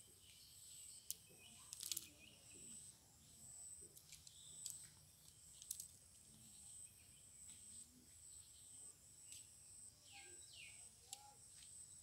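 Faint outdoor ambience: a high-pitched insect trill comes and goes throughout, with a few sharp clicks in the first half and some short falling bird chirps near the end.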